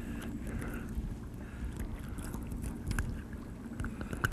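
Steady low rumble and faint hum of a fishing boat on the water, with a few light clicks and taps scattered through it and a sharper click near the end.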